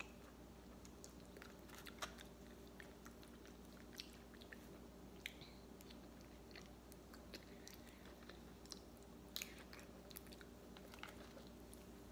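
Faint wet chewing and lip-smacking of someone eating soft, thawed frozen durian off a fork, with scattered small clicks, over a steady low hum.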